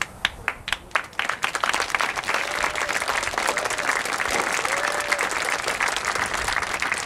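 Audience applause: a few scattered claps that build, about a second in, into steady clapping from a crowd.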